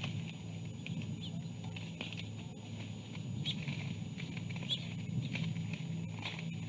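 Outdoor nest-microphone ambience: a steady low hum with a few short, high bird chirps scattered through it.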